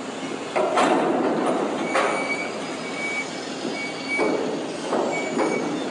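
Container crane machinery as its Bromma spreader works on top of a shipping container: a sudden clank about half a second in and another about two seconds in, over dense steady mechanical noise with a thin high squeal that comes and goes.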